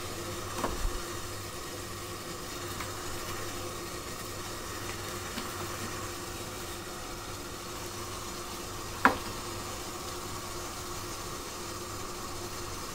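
Steady hiss of water boiling in an idli cooker on a gas stove, with a faint hum under it. A few soft clicks sound, and a single sharp clink about nine seconds in.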